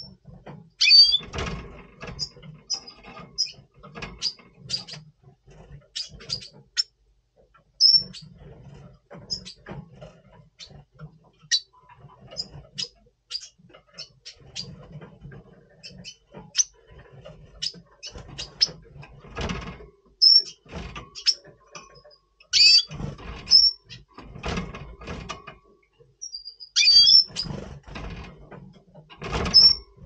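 Red siskin in breeding condition giving repeated short, high chirps and calls, a few sweeping downward in pitch. Irregular knocks and flutters run through them as the bird moves about the wooden perches of its cage.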